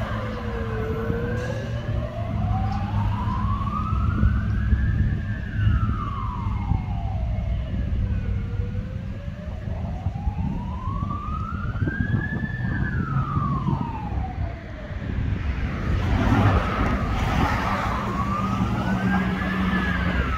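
Ambulance siren on a slow wail, each cycle rising for about four seconds and falling for about three, over steady road traffic noise. The siren is briefly covered by louder passing traffic about three-quarters of the way through.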